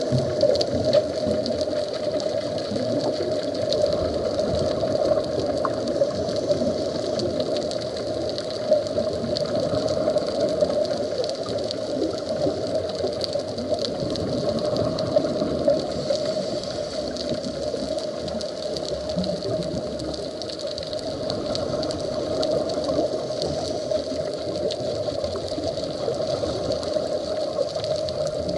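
Underwater ambience: a steady, muffled rush of water with many faint scattered clicks and crackles.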